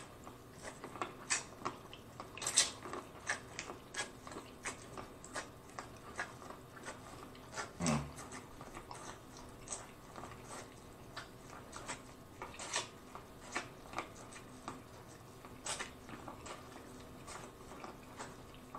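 Close-miked biting and chewing of boiled corn on the cob: an irregular run of crisp snaps as kernels are bitten off the cob, about one or two a second, with chewing between. A brief low hum comes about eight seconds in.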